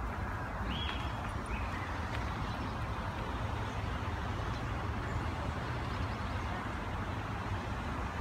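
Steady outdoor background rumble with an even hiss over it, and two short, faint high chirps about a second in.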